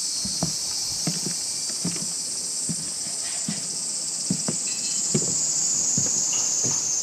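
Footsteps on a wooden boardwalk, a short thud about every second or less, over a steady high-pitched insect chorus.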